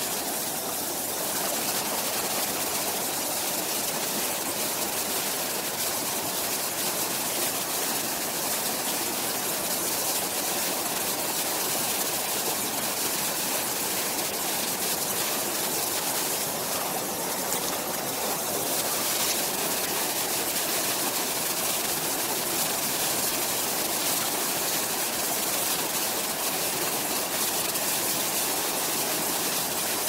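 Mountain stream running over rocky riffles and small cascades: a steady, even rush of flowing water.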